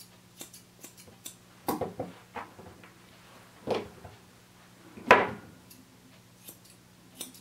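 Grooming scissors snipping the coat on a dog's leg in light, scattered clicks, with a few louder knocks and rustles, the loudest about five seconds in.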